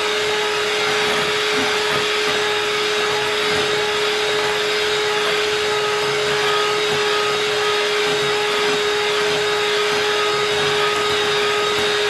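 Handheld electric mixer running steadily at one speed, its beaters whipping cream-cheese frosting in a glass bowl.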